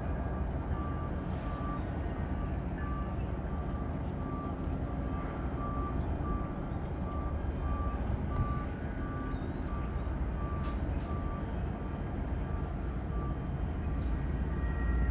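Rail yard ambience: a steady low rumble with a short electronic beep repeating about one and a half times a second.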